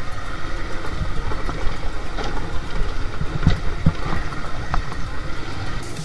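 Motorcycle engine running at low speed as the bike rides a rough, stony dirt trail, with a few sharp knocks about three and a half to five seconds in.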